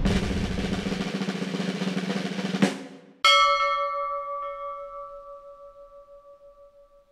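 A snare drum roll that ends in a sharp hit, followed about half a second later by a single bell strike that rings on and slowly fades.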